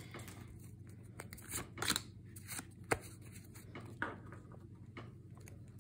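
Pokémon trading cards being handled: soft scattered clicks and rustles as the freshly unpacked cards are slid and flipped in the hands.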